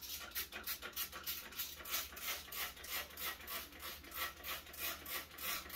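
Handheld spray bottle misting freshly sown seed trays, squirted rapidly in short hissing sprays about five a second, watering the seeds in from the top.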